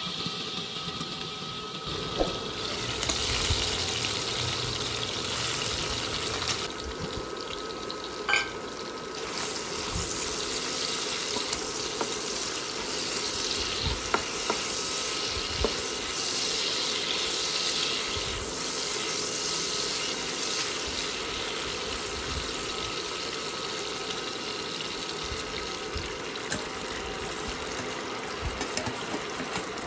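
Onion rings and pork pieces sizzling and bubbling in a dark sauce in a nonstick pan, stirred and scraped with a spatula, with a few short knocks of the spatula against the pan. A brief clink about eight seconds in.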